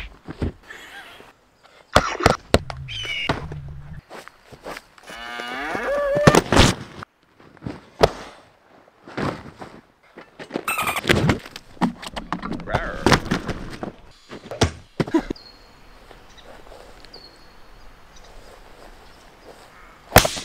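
A run of short animal calls, among them a cow's moo, mixed with thuds and knocks of blows against a standing tackle bag; the last few seconds are quieter.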